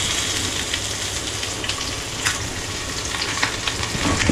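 Rui fish coated in poppy seeds and semolina frying in hot oil in a frying pan: steady sizzling dotted with scattered crackles.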